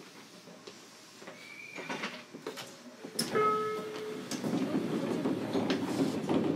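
Inside a JR Kyushu 303 series electric train's motor car (MoHa 303-1) pulling away from a stop after the doors close. The cabin is quiet at first. About three seconds in there is a thump and a short steady tone, then the running noise of the motors and wheels builds as the train gets under way.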